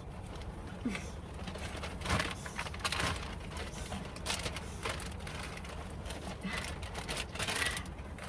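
Pomeranian gnawing a dog chew: irregular crunching and clicking strokes over a steady low background.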